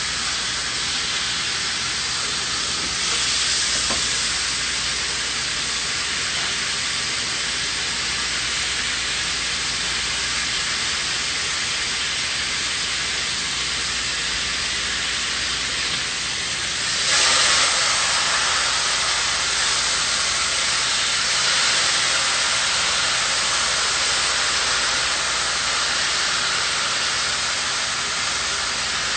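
Pork loin sizzling as it browns in olive oil in a pan, the searing stage before it is braised in milk. A steady hiss that grows louder about seventeen seconds in.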